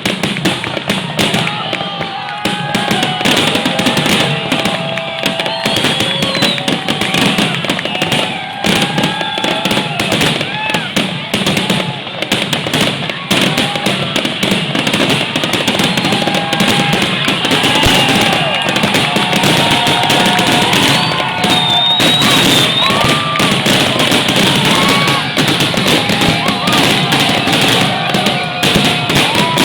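Fireworks finale: a continuous barrage of shell bursts and crackling, packed close together, with many short wavering pitched sounds over the bangs.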